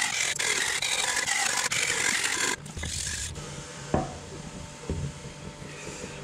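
Kitchen knife rubbed back and forth on a whetstone: rough, rapid scraping for about two and a half seconds. After that, a cleaver knocks on a wooden chopping board about four seconds in and again a second later, over a low steady hum.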